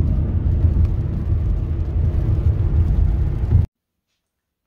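Steady road and engine noise inside a moving car's cabin, a low rumble that cuts off suddenly about three and a half seconds in.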